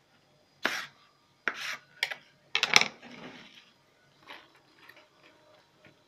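Knife slicing thin green peppers on a plastic cutting board: a few short scraping strokes about a second apart, the loudest a cluster of sharp knocks a little under three seconds in. After that come fainter ticks and rustles as the pepper pieces are laid by hand into a clay pot.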